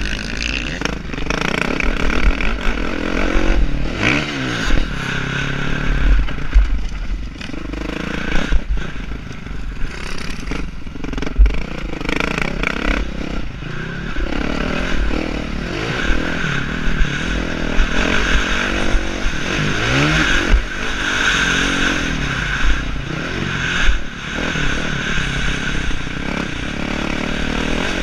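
Motocross bike engine revving hard and easing off again and again as it is ridden around a dirt track, with scraping and clattering knocks throughout and rumbling buffeting on a helmet-mounted camera.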